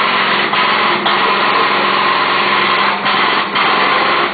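A motor-driven machine running steadily with a loud, noisy hum. It dips briefly about half a second and a second in, and again around three and three and a half seconds.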